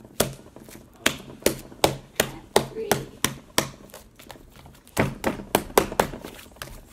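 A lump of slime slapped down onto a tabletop by hand again and again: a quick run of sharp wet smacks, about three a second, with a pause of about a second midway.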